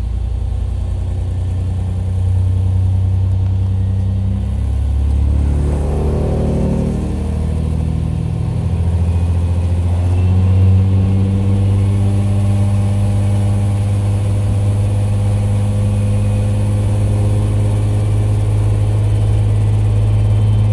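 IRT355 diesel railcar's 355-horsepower diesel engine running under way, heard from inside the car. Its note dips and changes about six seconds in, then settles into a steady drone.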